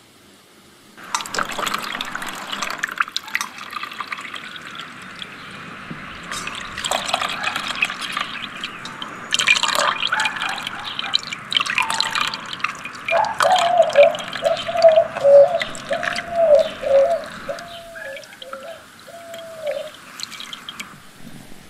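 Coconut milk being strained from grated coconut through a mesh sieve into a stainless steel bowl: a pour, then trickling, splashing and dripping as the pulp is squeezed. It starts about a second in and is loudest around the middle.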